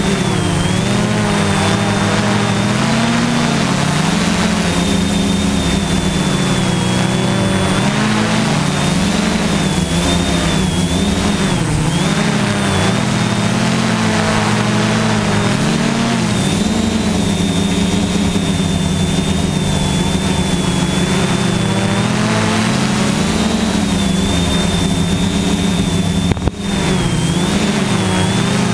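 Quadcopter's electric motors and propellers buzzing loudly and steadily, heard from the GoPro mounted on its frame, with a high whine above the hum; the pitch wavers slightly as the motor speeds change. A brief dip in loudness near the end.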